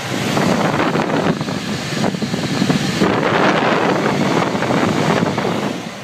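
Bryant gas furnace blower running, a loud rush of return air drawn past the microphone held at the blower opening, buffeting it unevenly.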